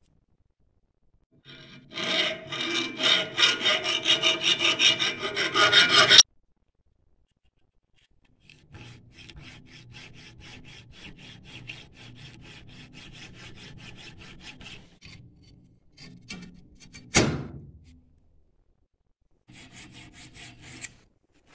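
Hand file rasping on the steel of a falchion blade clamped in a vise. It starts with a loud run of quick strokes for about four seconds, then a longer run of lighter strokes. One sharp, louder scrape comes about three quarters of the way through, and a short last run near the end.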